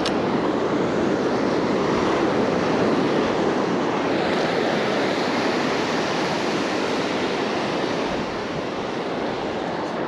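Ocean surf breaking and washing up the beach in a steady rush, with wind rumbling on the microphone.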